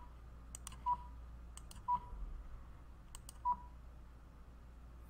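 Computer mouse clicks, each followed by a short single-pitched beep from FastDUCT estimating software, three beeps in all about one to one and a half seconds apart: each beep confirms a round diffuser being marked on the plan as a takeoff item.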